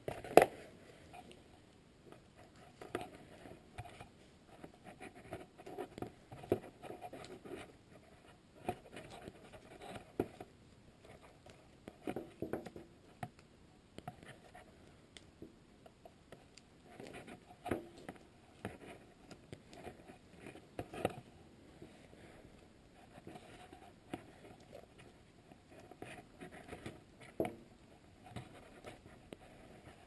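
Hands wrapping a strip of black electrical tape around a soldered wire splice in a wiring harness: faint, irregular rustling and small clicks of tape and wires being handled, with one sharper click just after the start.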